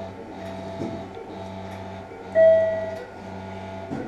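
Operating-room equipment giving a repeating electronic tone, each about half a second long and coming roughly once a second; one tone about two and a half seconds in is much louder than the rest.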